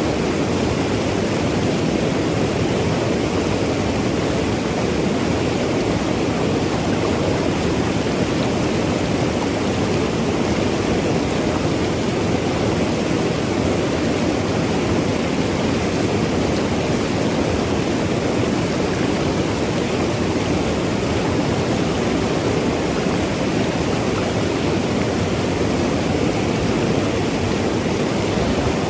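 Mountain river rushing and gurgling over rocks: a steady, unbroken wash of water noise.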